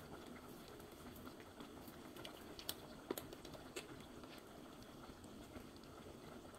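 Faint scattered clicks and crackles of a small plastic water bottle being handled and its cap twisted open, with a few sharper clicks around the middle.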